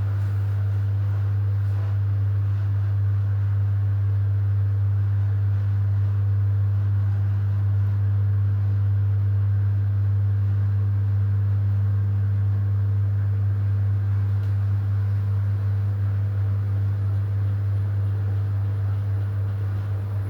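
AEG washing machine running during its rinse and spin programme, giving a steady, unchanging low hum.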